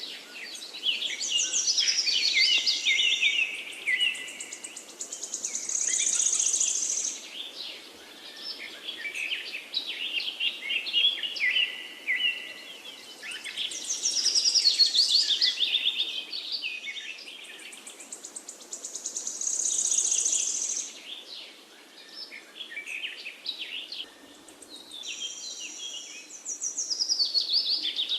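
Songbirds chirping and singing, several calls overlapping in quick high chirps and trills, over a faint steady hiss. The chirping swells and eases in waves every few seconds.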